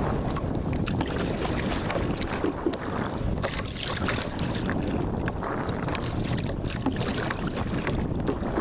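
A paddle dipping and splashing as a small raft is paddled toward a dock, with water sloshing in irregular short splashes over a steady rush of wind on the microphone.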